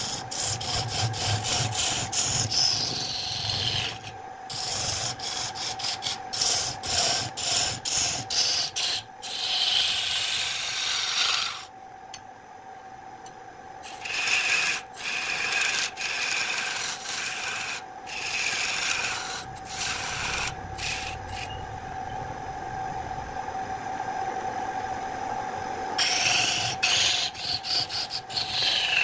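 Wood lathe turning a wooden blank while a hand-held turning tool cuts it: rough scraping and shaving in a run of short strokes, broken by two quieter pauses, one about midway and a longer one in the last third. A steady hum from the running lathe sits underneath.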